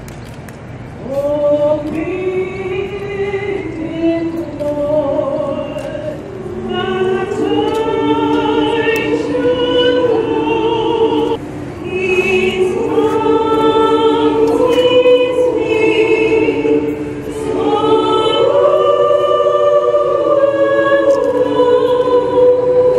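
A choir singing slow, long-held chords in several voices, entering about a second in and moving through a few phrases with short breaths between them.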